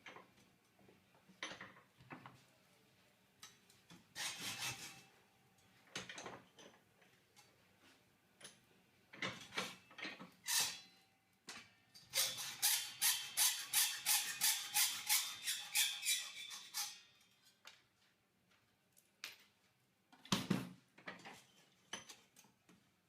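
Hacksaw cutting steel cable tray, a run of quick back-and-forth strokes at about four a second for several seconds past the middle. Scattered knocks and scrapes come before and after it as the tray is handled.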